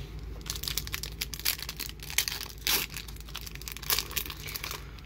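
Foil wrapper of a Pokémon TCG Fates Collide booster pack crinkling and tearing as it is opened, a dense run of irregular crackles.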